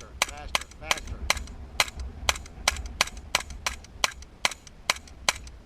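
Gunshots fired one at a time in a steady string, about two to three a second, some fifteen shots, stopping near the end.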